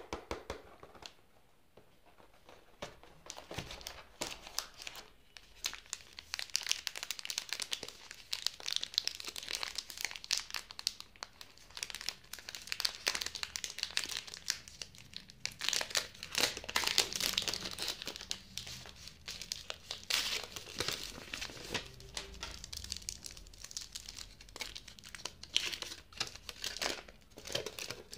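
Cadbury Dairy Milk Silk bar's wrapper being torn open and its aluminium foil inner wrap unfolded by hand: dense, irregular crinkling and tearing of wrapper film and foil, coming in louder spells.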